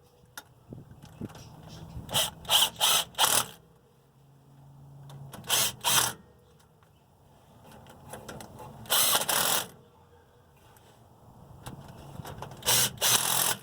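Power driver running the differential cover bolts down in short bursts, seven or so separate runs with brief pauses between them.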